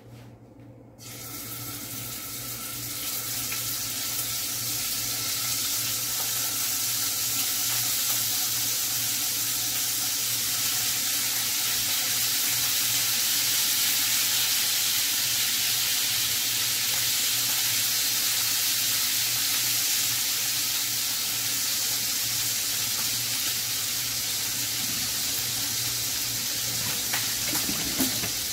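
FriChik vegetarian chicken pieces sizzling in a hot pot: a steady hiss that starts suddenly about a second in and holds on. Near the end a tap runs into a stainless-steel sink.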